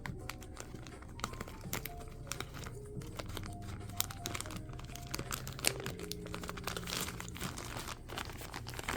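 Packaging of a blind-box collectible figure being opened by hand: the wrapper crinkles and the cardboard rustles and tears in many short crackles, over soft background music with held notes.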